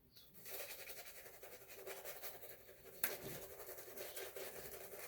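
Shaving brush scrubbing rapidly against wet shaving soap, working up lather after a few drops of water. There is one sharp tap about three seconds in.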